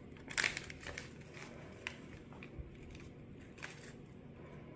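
A small paper pouch of cake mix crinkling as it is shaken and squeezed to empty the powder into a bowl: a louder rustle about half a second in, then a few short, soft crinkles.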